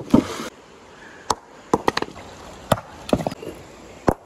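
A heavy stone slammed down onto a rock in shallow river water: a sharp crack and splash at the start, then several sharp stone-on-stone knocks, and another hit near the end. This is 'bombazos' stone-strike fishing, where the blows against the rock stun fish sheltering beneath it.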